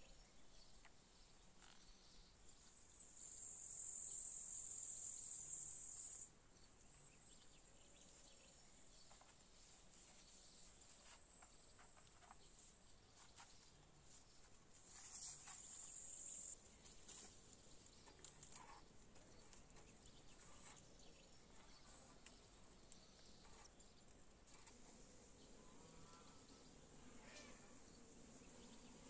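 Faint outdoor quiet with an insect's high-pitched buzzing song, heard twice: about three seconds a few seconds in, then about a second and a half midway.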